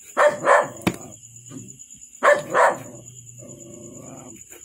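A dog barking: two quick barks right at the start and two more about two seconds in. A single sharp knock of a knife chopping onto a cutting board about a second in.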